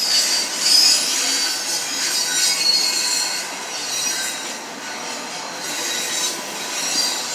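Freight train of double-stacked container cars rolling past, its steel wheels squealing against the rails in several high, wavering tones over a steady rolling noise.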